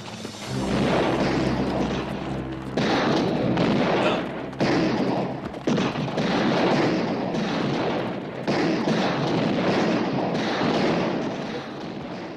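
Heavy gunfire, many shots overlapping, in loud waves of one to three seconds that break off and start again, dying down near the end.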